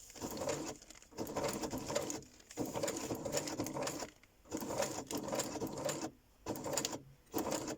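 Uten 2685A electric sewing machine running a straight stitch at slow speed through a thick stack of paper, stopping and starting in bursts of a second or so because it has a lot to go through.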